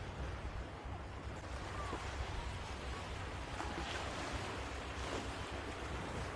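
Surf washing onto a beach, with wind rumbling on the microphone.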